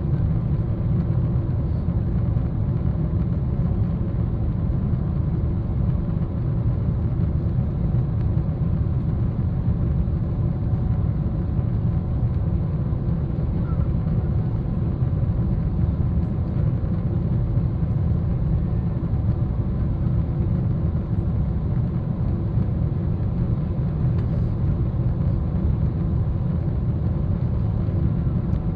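Steady cabin noise inside a Boeing 777-300ER airliner in flight: a low, even rumble of airflow and its GE90 engines, with a faint steady hum over it.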